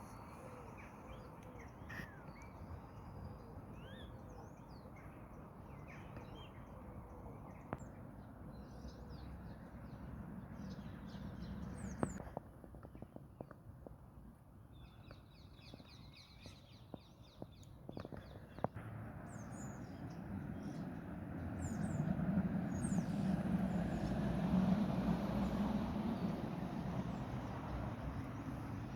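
Small birds chirping and singing in short, repeated calls over a low background rumble that grows louder about two-thirds of the way through, with a few sharp clicks.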